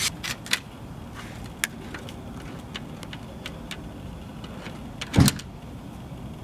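Scattered light clicks and taps from handling the plastic louvered dryer vent cover and a cordless drill at the wall, with one louder short thump about five seconds in.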